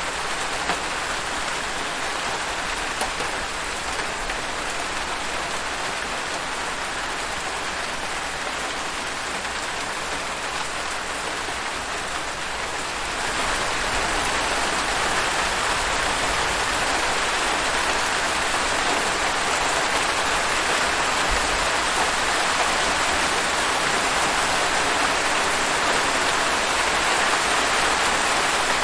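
Steady rainfall, the patter of rain on surfaces, which grows heavier and louder about halfway through.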